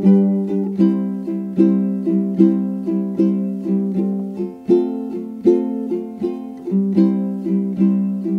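Background music of plucked string notes in a steady, even beat.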